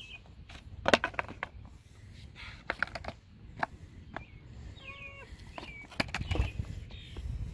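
Skateboard rolling on concrete, with sharp clacks of the deck and wheels striking the ground, the loudest about a second in and another cluster around six seconds. Faint bird chirps come through in the middle.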